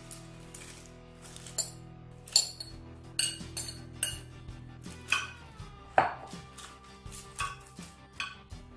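Irregular clinks and knocks of a utensil against a glass bowl, about ten in all, as diced aubergine is tipped and scraped into a baking-paper-lined oven dish, over soft background music with held notes.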